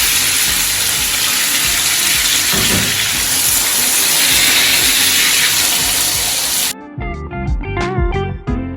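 Chopped onions and tomatoes sizzling loudly in hot vegetable oil in a frying pan, a steady hiss. It cuts off suddenly near the end, and plucked guitar music takes over.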